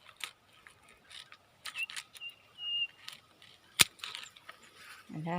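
Pruning secateurs clicking and snipping through a dragon fruit's cactus stem: a few light clicks, then one sharp snip about four seconds in.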